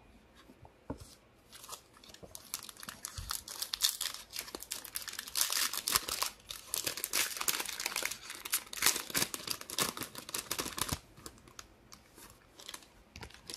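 Foil wrapper of a 2023 Bowman baseball card pack being torn open and crinkled by hand. The dense crackling thins out over the last couple of seconds.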